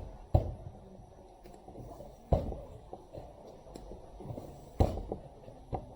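Tyre lever and wheel rim knocking together as the wheel is hooked onto a lever held in a vice and rotated to break the tyre bead: four sharp knocks, one to two and a half seconds apart, over quieter handling noise.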